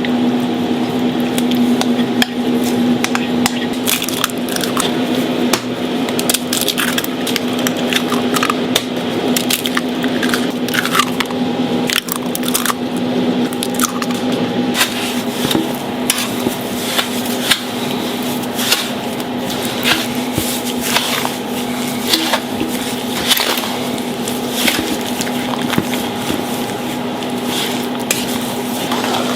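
Food-preparation handling sounds: frequent light taps, knocks and soft squishes of dough and utensils over a steady machine hum.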